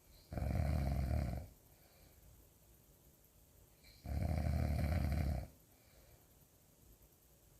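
Loud snoring: two long snores about four seconds apart, each lasting a little over a second.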